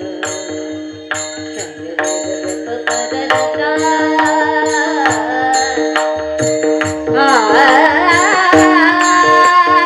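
A woman singing a Marathi devotional kirtan, accompanied by held instrumental tones and percussion keeping a steady beat; her voice grows louder and more ornamented about seven seconds in.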